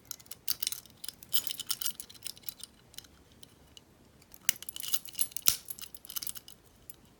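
Light metallic clicks and scrapes of a warded pick being inserted and turned in an old warded padlock, in scattered clusters with quieter gaps between.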